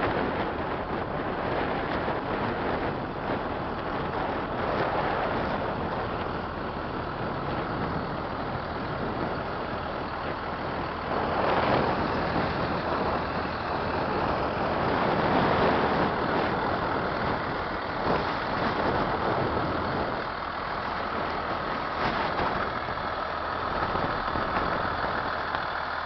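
Turbocharged Cummins B Series diesel engine of a school bus idling steadily. A rushing noise over it swells twice midway.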